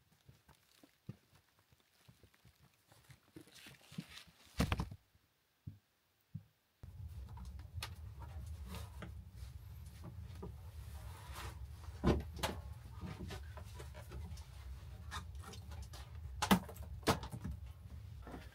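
Handling noise and knocks as winter boots are picked up and set down on a wooden plank floor, with clothing rustle and a few loud thuds. A steady low hum comes in about a third of the way through. Before that there are only scattered soft clicks and one sharp knock.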